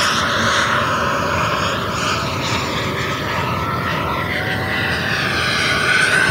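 Electric ducted-fan (EDF) jet model in flight: a steady high fan whine over a rush of air. The whine sags a little mid-pass, then rises in pitch and grows louder near the end as the jet comes back toward the microphone.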